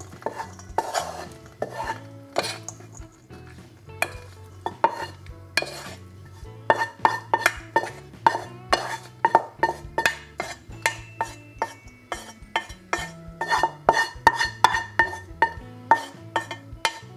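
Spatula scraping and knocking against a stainless-steel frying pan as fried vegetables are pushed out of it: a rapid series of sharp clicks, about two to three a second from a few seconds in, with the pan ringing faintly after each knock. Quiet background music runs underneath.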